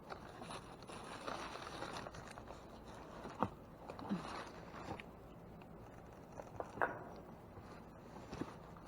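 Light rustling and handling noise, with a few short knocks and clicks spread through it.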